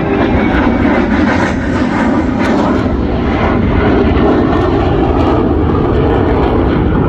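Fixed-wing aircraft engines, a loud, steady rushing noise with no distinct pitch.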